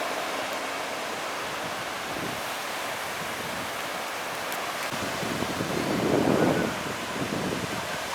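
Sea waves washing onto a beach, a steady rush with one wave swelling loudest about six seconds in.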